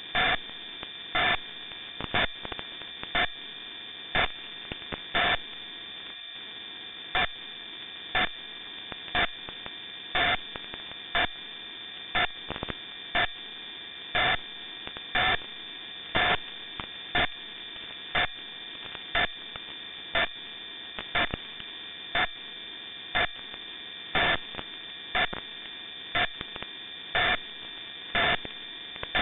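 Longwave radio signal received on a web SDR at 75 kHz: a hissy, humming band with several steady high-pitched whistles, broken by a short, loud pulse about once a second, some pulses longer than others.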